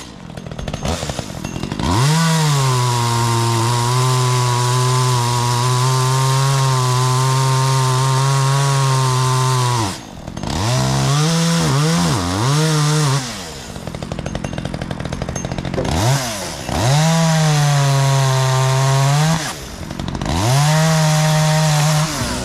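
Chainsaw revved to full throttle and held there for about eight seconds while sawing wood. It drops to idle, is blipped a few times, then runs at full throttle twice more in shorter runs with short idles between.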